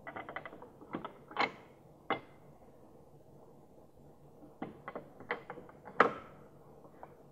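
Brake pads being slid into an AP Racing brake caliper, their hard backing plates clicking and scraping against the caliper body in short clusters of small knocks. A sharper clack about six seconds in is the loudest.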